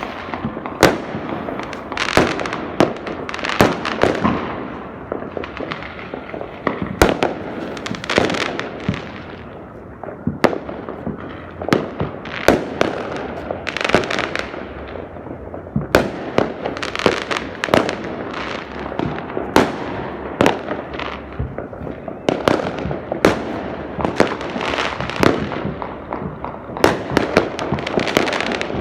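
Fireworks going off: many sharp bangs at irregular intervals, often several a second, over a continuous crackling rumble.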